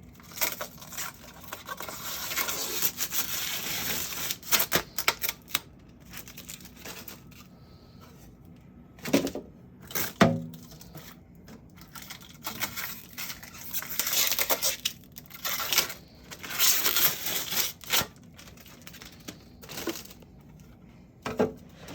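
Protective plastic film being peeled off new refrigerator parts in long rasping pulls, with small clicks and clatter as the pieces are handled and two louder knocks about nine and ten seconds in.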